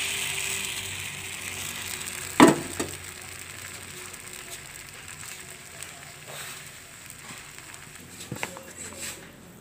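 Thin crepe batter sizzling in a hot non-stick frying pan, the hiss fading over the first couple of seconds as the batter sets. A sharp knock comes about two and a half seconds in, the loudest sound, with a few lighter clicks near the end.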